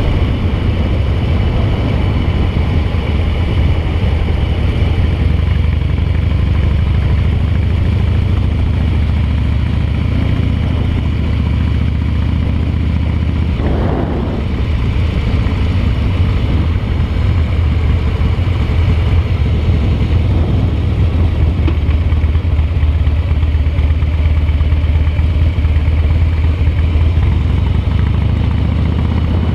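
Harley-Davidson V-twin engine running steadily while the motorcycle is ridden along the road. The engine note briefly drops and changes about halfway through.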